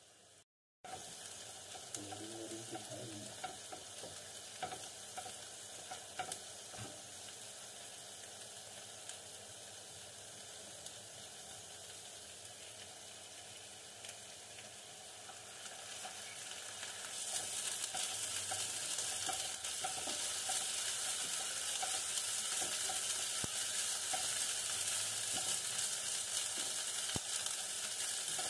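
Chopped onions sizzling in oil in a nonstick pan as they brown, with a silicone spatula scraping and stirring them. The sizzle grows clearly louder a little past halfway.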